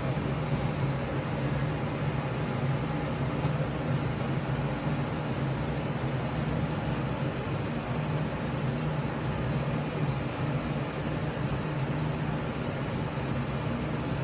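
Steady low hum of kitchen ventilation, with soft rasping as a fresh wasabi root is rubbed in circles on a sharkskin grater.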